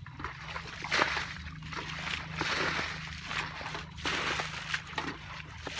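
Muddy pond water being bailed by hand with a bucket and a metal basin: repeated scooping, sloshing and splashing as the water is tipped out, roughly once a second, over a steady low hum.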